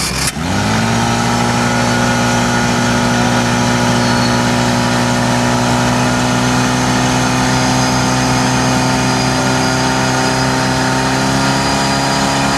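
Portable fire pump engine running flat out, a loud, steady engine note whose pitch creeps slightly upward, as it drives water through the attack hoses to the nozzles.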